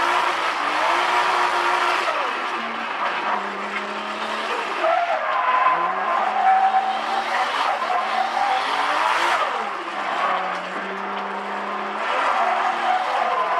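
Turbocharged 2JZ straight-six engine of a drift car, heard from inside the cabin, revving up and down repeatedly as the throttle is worked through the slides, with tyres squealing on the tarmac.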